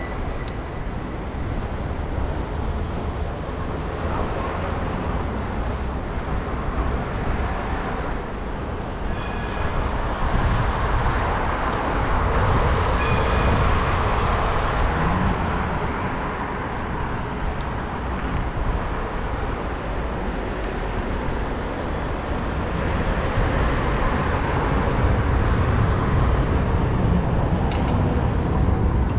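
City street traffic heard from a moving bicycle, with cars passing over a steady low rumble. The traffic swells about ten seconds in and again near the end. Two brief high ringing tones come about nine and thirteen seconds in.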